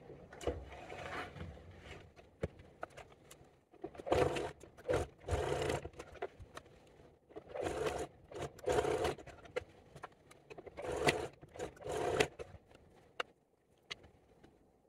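Domestic sewing machine running in several short bursts with pauses between, stitching short corner seams through fabric with a backstitch at each end.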